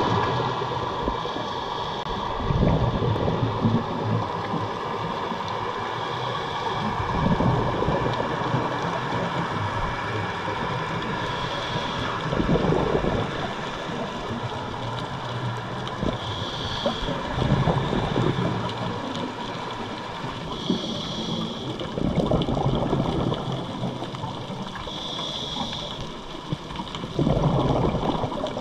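Scuba diver breathing through a regulator underwater: a gurgling rush of exhaled bubbles about every five seconds, with a short hiss between them on each inhale.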